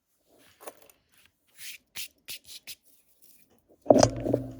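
Jewellery and bags being pushed aside on a table: a few short rustles and light clicks, then a louder scraping rub as something is dragged, near the end.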